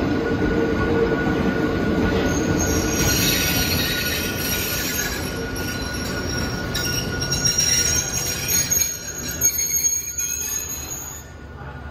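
Hakone Tozan Railway Moha 1 and Moha 2 electric cars pulling slowly into the station, with a running rumble and high-pitched wheel squealing that starts a few seconds in. The rumble eases as the train slows, and the squealing cuts off just before the end as the train comes to a stop.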